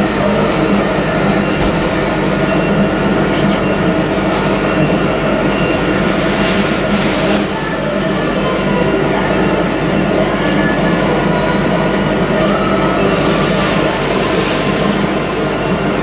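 Laser engraving machine running while it marks a logo into a camera housing: a loud, steady hum with several held tones over a hiss.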